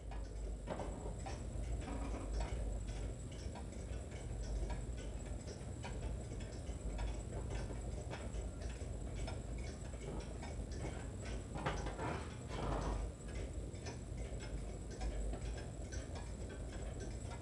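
Antique mechanical clocks ticking steadily, several ticks a second, over a low steady hum.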